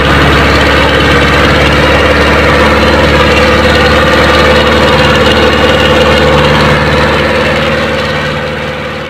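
Powertrac Euro 60 tractor's diesel engine running steadily while pulling a disc harrow through a field. It fades out near the end.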